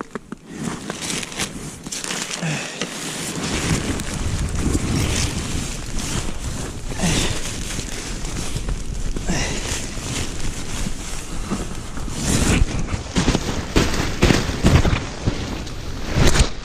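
Nylon tent fabric rustling and crinkling as a tent is unfolded and set up, with wind rumbling on the microphone from about three and a half seconds in.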